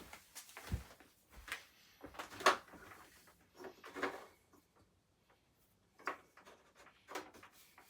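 Handling noises: a scattered series of knocks, clicks and rustles, with a low thump about a second in and the sharpest click about two and a half seconds in. No vacuum motor is running.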